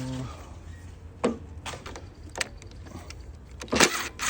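Scattered light clicks and clinks of hand tools and metal parts being handled while working on a lawn mower, with a louder burst of rattling noise near the end.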